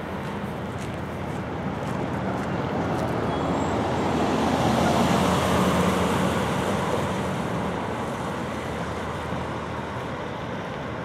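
A road vehicle driving past without a siren: engine and tyre noise swell to a peak about five seconds in, then fade away.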